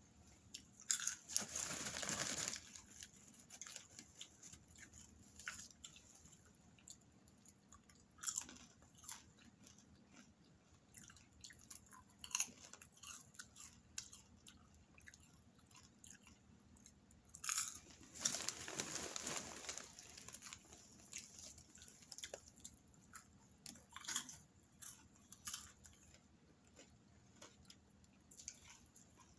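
Popcorn being chewed close to the microphone: quiet crisp crunches through the whole stretch, with two louder, longer spells of noise, one about a second in and one a little past the middle.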